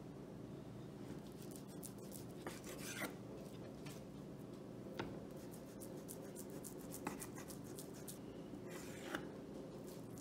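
Chef's knife slicing through a raw beef tenderloin, scraping and rasping, with a few short knocks of the blade on a bamboo cutting board. A faint steady hum runs underneath.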